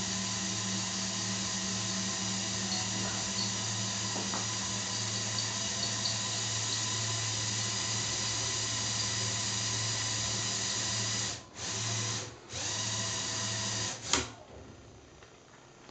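Small Lego Technic electric motors running with a steady whine, stopping briefly twice near the end, then a single sharp click as they shut off.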